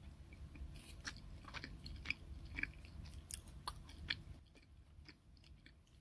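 Faint, irregular crackles and clicks of a soft green-tea red-bean mochi bun close to the microphone, over a low rumble, thinning out after about four and a half seconds.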